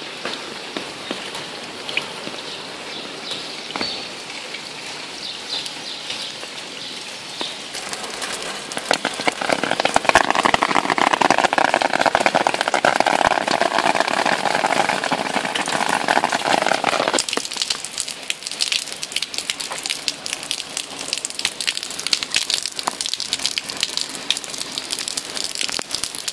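Rain pattering on wet asphalt, with individual drops ticking. From about eight seconds in, a louder, steady gush of rainwater pouring from a downspout onto the pavement takes over for about nine seconds and stops abruptly, leaving the rain patter.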